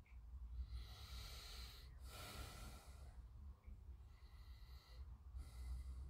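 Faint breathing close to the microphone: about four slow breaths in and out, over a low steady hum.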